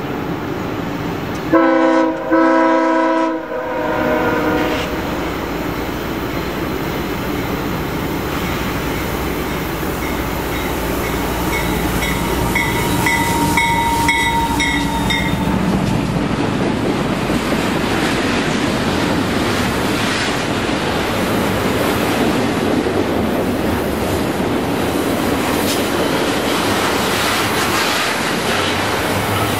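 Canadian Pacific diesel freight locomotive sounding its horn about two seconds in, a short blast then a longer one. The locomotives then come up and pass close by, followed by the steady rumble and clatter of double-stack container cars rolling past on the rails.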